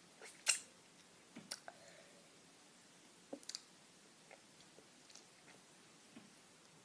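Faint, scattered mouth clicks and smacks of a child sucking on a Warheads sour hard candy. The loudest click comes about half a second in, with a few more around one and a half and three and a half seconds.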